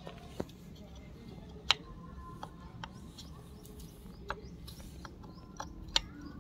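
Scattered light clicks and taps of metal parts as hands handle an opened vacuum pump, with one sharper click nearly two seconds in.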